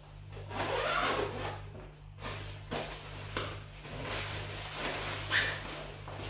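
Rustling and rubbing as the ring light and its tripod are handled during unboxing, with a few short sharp clicks and knocks, the loudest about five seconds in. A low steady hum runs underneath.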